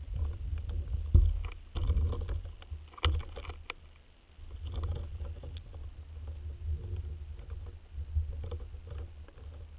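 Water sounds picked up by an underwater camera: a muffled low rumble with a few sharp knocks and splashy clicks in the first three seconds, the loudest about a second in, then quieter uneven rumbling.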